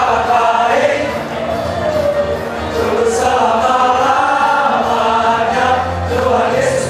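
Music with a group of many voices singing together in chorus.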